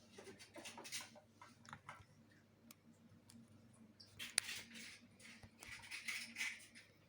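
Satin fabric rustling and swishing as it is handled, with scattered small clicks and one sharp click about four seconds in.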